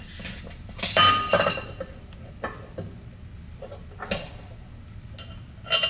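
Metal clanks and clinks as the valve's metal cover plate is set against the flow control valve body and steel bolts are picked up off the workbench. A cluster of ringing clanks about a second in is the loudest, followed by single clinks about two and a half and four seconds in and another near the end.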